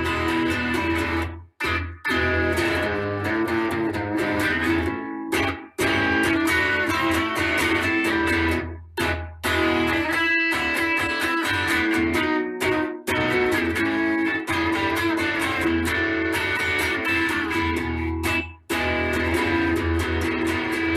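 Instrumental break in a blues-style song: guitar playing over a steady bass line, with no singing. The sound cuts out for an instant several times.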